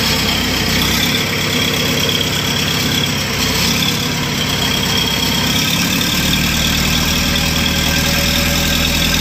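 Fishing boat's inboard engine running steadily under way, a loud, even drone whose low end grows stronger about six seconds in.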